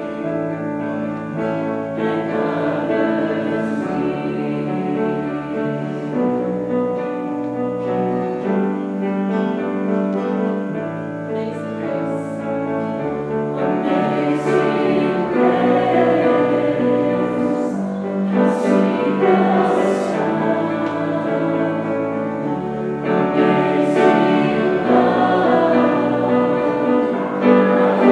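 A choir singing a sustained, slow-moving choral piece, with held chords that change every second or two.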